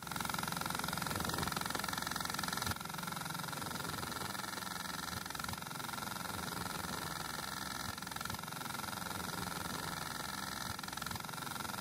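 Small motor of a model helicopter spinning its rotor at speed, a steady mechanical hum with a slight whine that dips a little in level about three seconds in.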